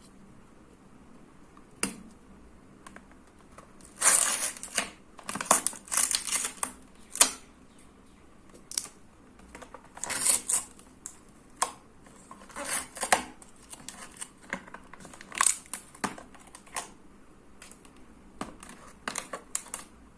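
Plastic clamshell toy packaging being opened and handled: irregular crinkling, crackling and sharp clicks of stiff plastic, busiest about four to eight seconds in and again in the middle.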